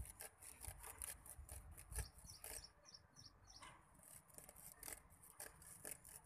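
Faint rustling and scraping of hands working the netting tangled around a rat snake, with a small bird chirping a few times in the background.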